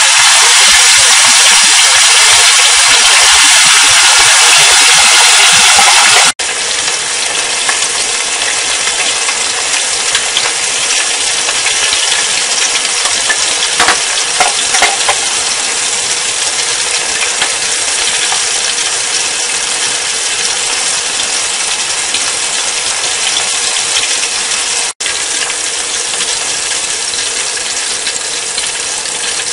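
Chicken wings deep-frying in a pot of hot oil: a loud, steady sizzle and bubbling. It turns quieter after a cut about six seconds in, with a few light clinks near the middle.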